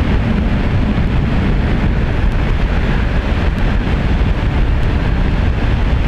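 Wind buffeting the camera microphone on a Honda ADV 160 scooter riding at road speed: a loud, steady, even rumble, with road and engine noise blended in.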